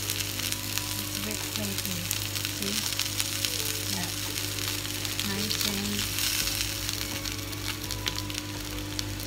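Salmon fillets and sliced potatoes frying in oil in a grill pan, with a steady sizzle and dense fine crackling, and a spatula and fork moving the food.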